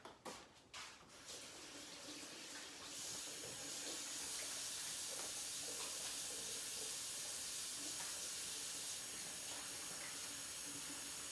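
Kitchen faucet running into the sink while hands are washed under it. A few light knocks open it, then the water runs steadily, fuller from about three seconds in.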